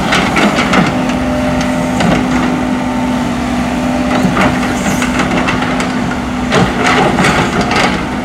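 An excavator's diesel engine runs steadily while the machine works, with scattered clanks and knocks from the bucket and tracks on the ground as it levels and packs the track surface.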